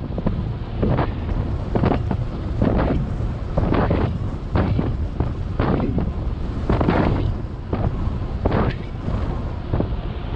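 Wind buffeting a GoPro action camera's microphone on a moving bicycle: a heavy rumble in irregular gusts.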